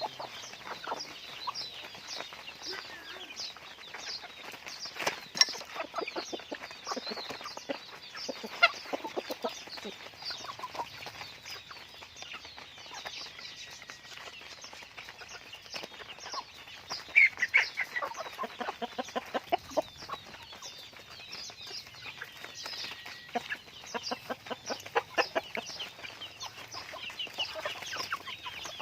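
A flock of chickens clucking and calling, with many short calls overlapping throughout and a denser, louder run of clucks about two-thirds of the way through.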